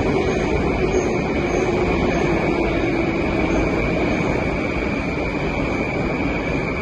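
Steady rumble of a metro station platform, with a low hum that sinks slightly in pitch and a steady high-pitched whine over it.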